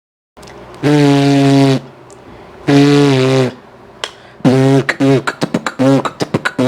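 Beatboxer making vocal sound effects with the mouth and throat: two held notes of about a second each, then a fast, stuttering run of short notes and clicks.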